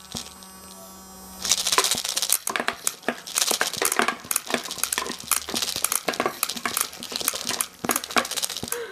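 Homemade electric airsoft BB gun running: its hobby motor hums steadily, and from about a second and a half in comes a rapid, irregular clatter of 6 mm plastic BBs being flung out and striking the cardboard target box and paper targets.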